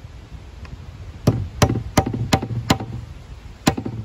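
Hammer driving a nail into a wooden deck board: five sharp blows about three a second, starting just over a second in, then a short pause and one more blow near the end.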